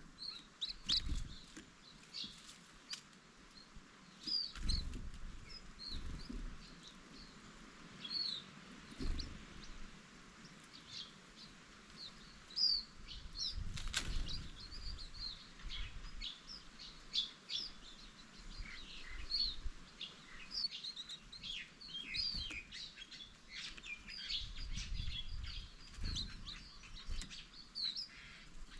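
Green-backed white-eyes chirping: a steady flurry of short, high chirps, busiest in the second half, with occasional low thumps.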